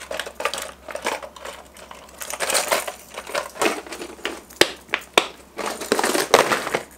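Clear plastic tackle trays being handled: latches snapped and lids opened, with hard plastic deep-diving crankbaits rattling against each other and the tray. A quick run of clicks and rattles, with a few sharp clicks in the second half.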